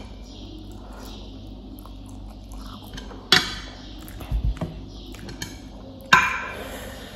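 Wooden chopsticks knocking against a plate: two sharp clinks with a short ring, about three seconds apart, and a few low thuds on the table between them.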